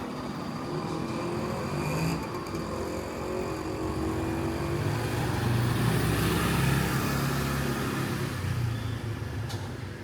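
Street traffic: a motor vehicle's engine running and passing, louder about six seconds in.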